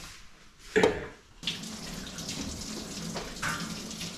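A brief knock about a second in, then a gas stove burner catches about a second and a half in and hisses steadily under the pot of butter as it is set to heat for ghee.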